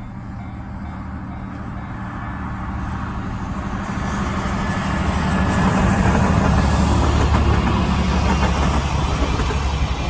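DE10 diesel-hydraulic locomotive passing close with its engine droning, louder as it approaches. After it come the wheels of the vintage passenger coaches it hauls, rumbling on the rails. The sound is loudest about six to eight seconds in and eases slightly near the end.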